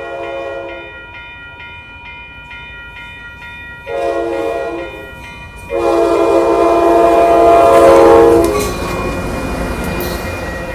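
An F59PHI diesel locomotive's horn blowing for the crossing: a blast ends about half a second in, a short blast comes about 4 s in and a longer, loud one about 6 s in lasting some three seconds. A bell rings about three times a second through the first half, and the passing train's rumble rises after the long blast.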